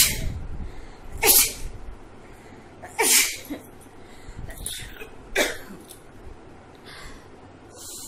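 A woman sneezing again and again: four or five sharp sneezes in quick succession, a second or two apart, set off by sniffing coriander powder.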